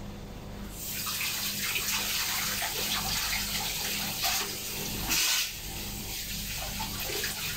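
Kitchen tap running into the sink, a steady splashing hiss that starts about a second in, with a brief louder splash around five seconds.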